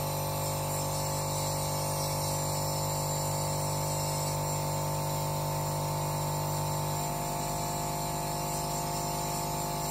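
LANVID portable compressor nebulizer's air compressor running with a steady buzzing hum as it drives distilled water in the medicine cup out of the mouthpiece as mist. The tone shifts slightly about seven seconds in.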